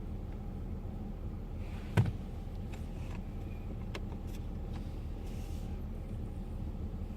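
Steady low hum with one sharp knock about two seconds in, followed by a few light clicks.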